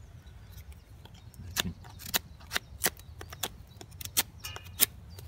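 A knife blade carving curls off a split sweet chestnut stick to make a feather stick: a series of sharp, irregular clicks as the edge bites and shaves through the wood.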